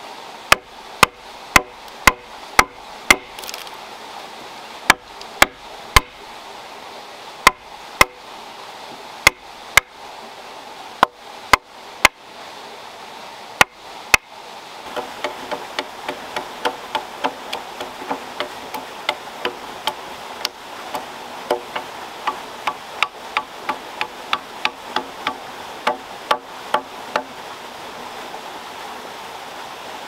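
Hand chisel being struck into a wooden log to cut a joint: sharp knocks about once a second for the first half. After that, lighter, quicker taps of a blade chopping at a log, about two or three a second, stopping a few seconds before the end, over a steady hiss.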